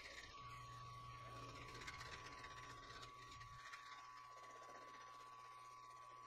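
Benchtop mill-drill running with a milling cutter taking a pass across a metal block: a faint steady motor whine over a low hum, with light cutting noise. The low hum eases a few seconds in.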